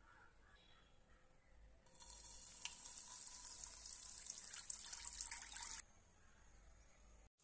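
Water poured in a steady stream into an empty nonstick pan, splashing on the pan's surface. It starts about two seconds in and stops abruptly after about four seconds.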